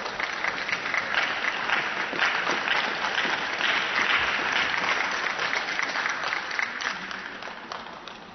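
Audience applauding in an ice arena, building up, then dying away near the end.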